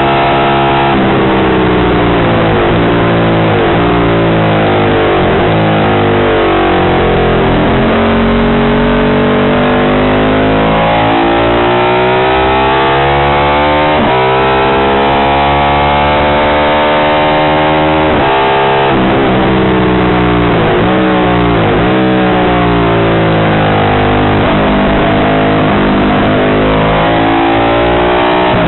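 Ducati 750 Imola racer's short-stroke, bevel-drive desmo V-twin at racing revs, heard onboard. The pitch climbs long and hard under acceleration, drops suddenly at the gear changes about 14 and 18 seconds in, and dips and blips in quick clusters as the bike slows for corners early on and again around 19 to 22 seconds in.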